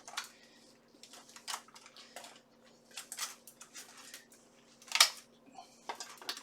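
Steel plate armour on an arm, an articulated arm harness and gauntlet, clinking and clicking as the arm bends and moves: scattered sharp metallic clicks, the loudest about five seconds in, over a faint steady hum.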